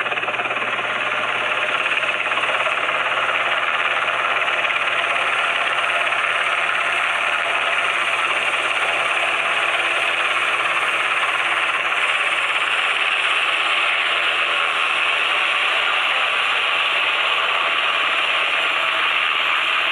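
Sikorsky UH-60 Black Hawk helicopter's rotor and twin turboshaft engines running loud and steady as it hovers in low to land.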